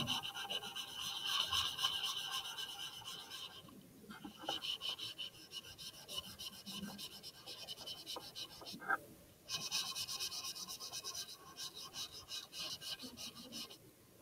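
Paper towel rubbing chalk pastel into paper in quick back-and-forth strokes, blending the colours. The scrubbing stops briefly about four seconds in and again about nine seconds in.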